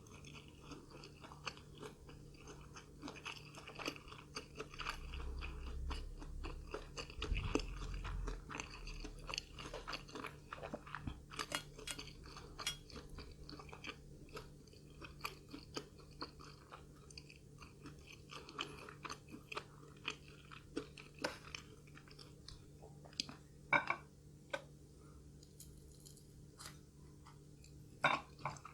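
Close-miked chewing and crunching of food, with many small irregular mouth clicks and a few louder sharp clicks near the end.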